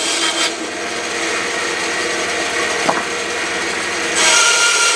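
Bandsaw running while its blade cuts through a wooden bowl-blank offcut. The cutting hiss dies down about half a second in, leaving the saw running, and picks up again a little after four seconds as the next cut begins; a light tick about three seconds in.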